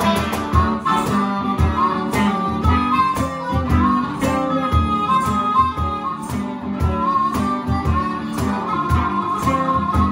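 Live blues band: a harmonica played cupped into a handheld microphone carries the melody over a strummed semi-hollow electric guitar and a steady cajón beat.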